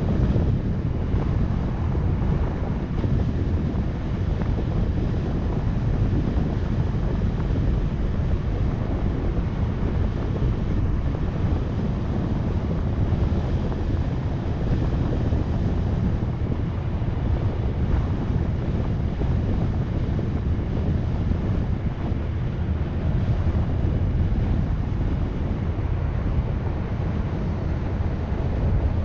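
Steady wind noise on a GoPro's microphone as it rides on a moving car, a constant low rumble mixed with road noise, with no breaks or changes.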